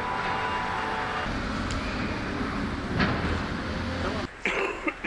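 Steady outdoor street background with road traffic noise. Just past four seconds it gives way to quieter sound with a few short knocks.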